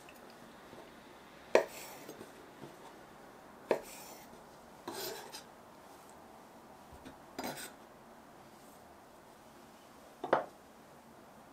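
Kitchen utensils and dishes knocking and clinking: about five separate sharp knocks a couple of seconds apart, some of them a short double clatter, over a quiet background.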